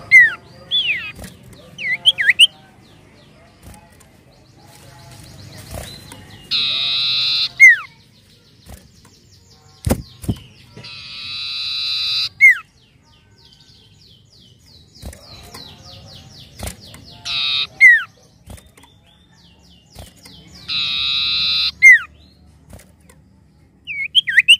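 Common iora (cipoh) singing: four harsh drawn-out notes of about a second each, a few seconds apart, each ending in a falling whistle, with short down-slurred whistles between them.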